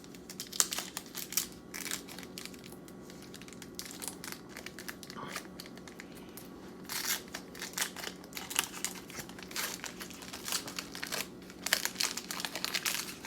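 Plastic wrapper of a baseball card pack being torn open and crinkled by hand, in irregular bursts of crackling with pauses between.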